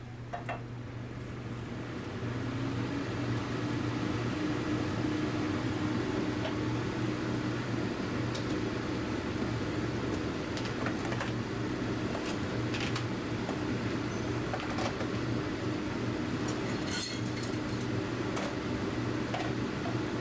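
A steady machine hum, growing louder about two seconds in, with scattered light clicks and knocks from plastic food containers and utensils being handled.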